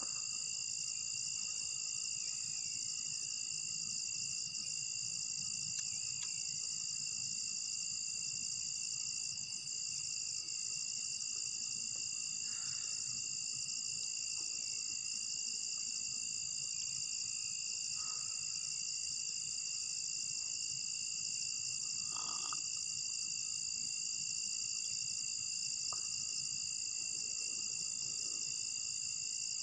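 Crickets and other insects trilling in a steady, high-pitched chorus over a lower steady drone. Short falling chirps come every couple of seconds in the first half, and now and then there is a brief croak.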